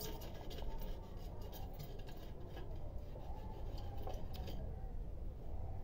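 Hand tool scraping and chipping at a ceramic-tiled masonry wall: quick, irregular scratchy clicks, thinning out about four and a half seconds in.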